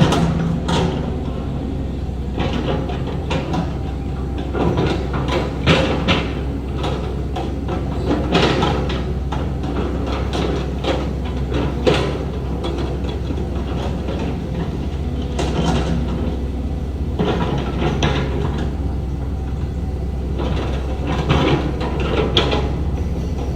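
Heavy earthmoving machinery at work: a steady low diesel engine drone with frequent metallic clanks and scrapes over it.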